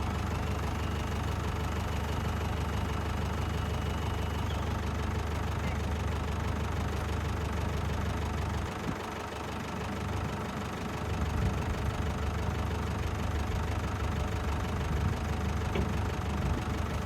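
Old David Brown tractor engine running at idle. About nine seconds in the hum dips for a moment, then it runs on a little louder and less evenly.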